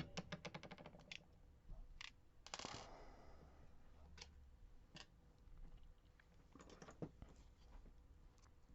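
Faint, scattered clicks and taps from handling a picked lock and its tools: a quick run of small ticks in the first second, then single clicks and a short rustle at intervals.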